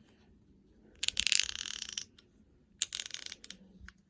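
GearWrench 120XP fine-tooth ratchet being worked back and forth by hand, its pawl clicking over the 120-position gear in a rapid, closely spaced run for about a second, then a shorter run and a few single clicks. The ratcheting action sounds fine.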